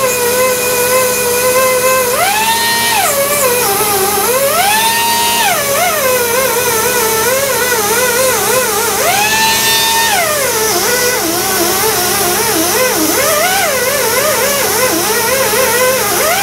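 Air-powered die grinder with a small abrasive disc whining as it cleans the cast iron engine block deck. The pitch rises to a higher whine when the disc is eased off, about 2, 4 and 9 seconds in, and drops and wavers when it is pressed onto the metal under load.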